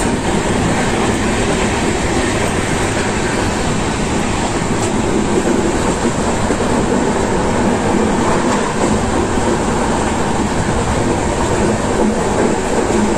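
Passenger train running, heard at an open carriage window: a steady, even rumble and rush of the wheels on the track.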